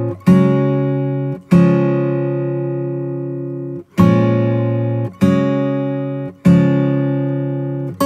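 Background music: a slow acoustic guitar piece of five strummed chords, each left to ring and fade for one to two and a half seconds before the next.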